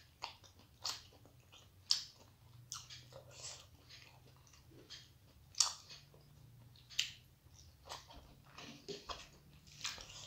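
Close-up chewing of a mouthful of rice and fish curry eaten by hand, with wet mouth noises and several sharp lip smacks spaced irregularly a second or more apart.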